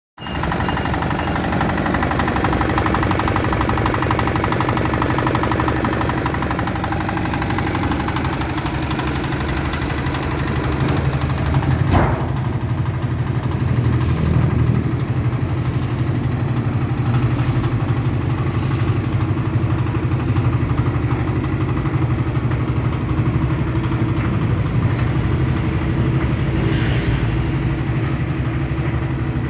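Dongfeng 8 hp single-cylinder diesel engine on a Habara concrete mixer, running steadily, with a single sharp knock about twelve seconds in.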